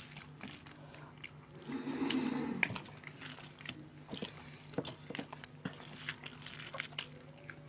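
Mouth and hand sounds of people eating rice and fish curry with their fingers: chewing, with scattered small clicks and smacks, and a louder muffled sound lasting about a second around two seconds in.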